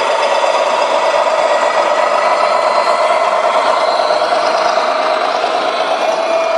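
1:14 scale radio-controlled model truck running: a steady whine that rises slowly in pitch, over a noisy mechanical background.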